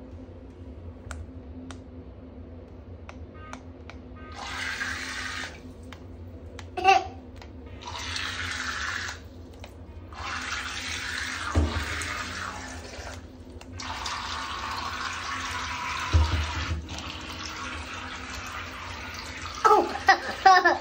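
Water rushing in four separate bursts of one to three seconds, each starting and stopping abruptly.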